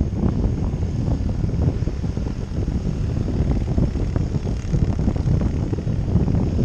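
Wind buffeting the microphone of an action camera on a tandem paraglider in flight: a loud, low rumble that flutters constantly.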